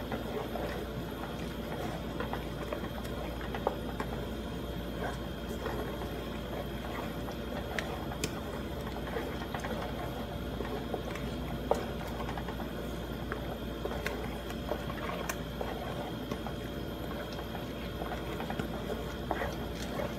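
Thick tomato sauce simmering in a metal wok while a wooden spatula stirs it: a steady hiss with scattered light scrapes and clicks.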